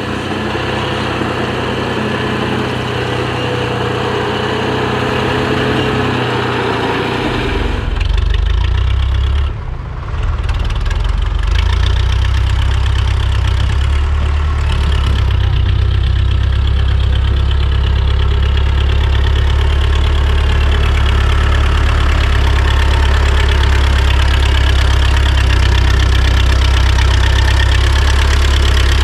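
Tractor engine running steadily while working a backhoe loader attachment; about eight seconds in its sound turns deeper and louder, with a brief dip around ten seconds.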